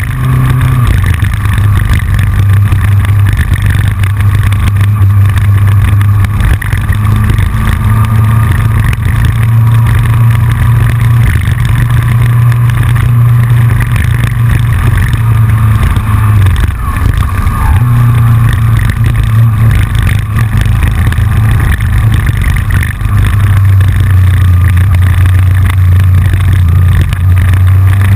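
Yamaha FJR motorcycle's inline-four engine running at road speed, its note easing off and picking up again a few times, with wind noise. Over it runs a constant rapid clicking from the GoPro rattling in its loose front-fairing mount.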